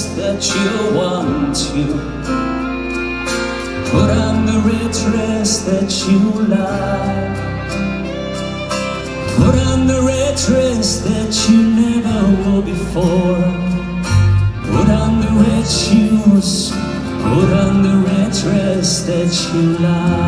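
Live band music heard from the audience in a large arena: a sung melody over guitar, drums with cymbal hits, and strings.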